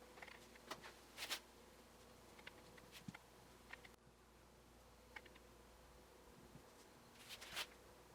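Near silence with a few faint, scattered clicks and taps, and two brief soft rustles, about a second in and near the end.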